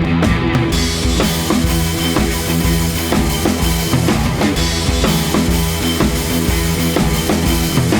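Background rock music with a full drum kit keeping a steady beat; the cymbals come in under a second in.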